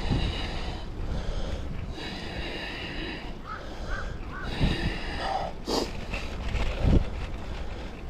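Wind rumbling on the microphone of a camera during a ride. Over it a bird gives three harsh, drawn-out calls, with a few short chirps between them.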